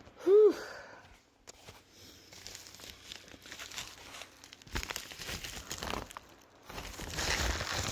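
A loud "whew" at the start, then crinkly packaging rustling and crinkling irregularly as it is handled and moved about, heaviest around five seconds in and again near the end.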